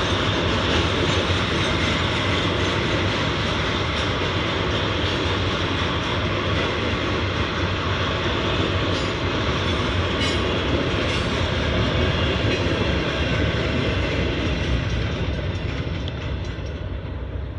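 Norfolk Southern rail train's flatcars, loaded with new rail, rolling past at close range: a steady rumble and rattle of steel wheels on the track. It fades near the end as the last car clears.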